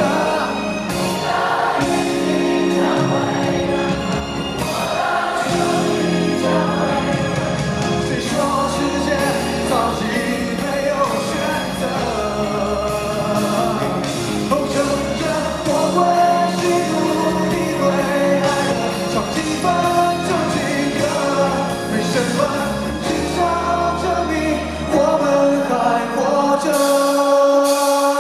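Live pop concert: a male lead singer singing into a handheld microphone over a live band with electric bass and electric guitar. The bass drops out briefly near the end.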